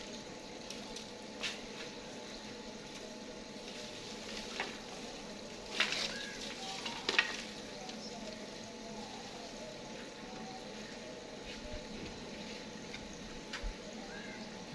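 Dry twigs and sticks being handled and snapped at a wood-fired stove: a steady hiss with a few scattered sharp cracks, two louder ones about six and seven seconds in.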